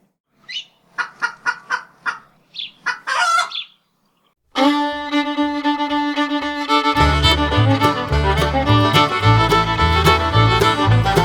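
Chicken calls in a quick run of short clucks with one longer call, then a brief silence and music starting about four and a half seconds in, its bass line coming in a couple of seconds later.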